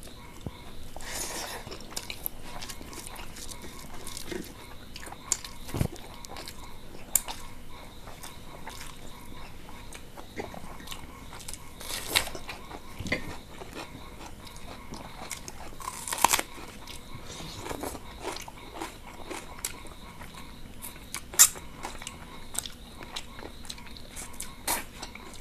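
Close-miked eating of chicken curry and rice by hand: chewing and biting, with crunches and sharp clicks scattered every few seconds.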